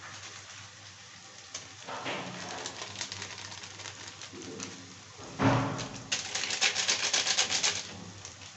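Plastic spice packet crinkling and being shaken as masala powder is poured into a kadai of frying onions. There is a sharp hit about halfway through, then a fast run of crackling rustles for about two seconds. A low sizzle runs underneath.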